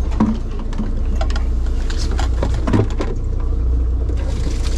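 Fishing boat's engine running with a steady low drone, with a few clicks and knocks from handling on the deck and a thump just under three seconds in.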